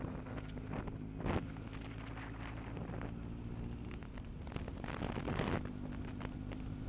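A vehicle engine running at a steady speed, with wind buffeting the microphone. There is a brief clatter about a second in and a rougher stretch of knocking around five seconds in.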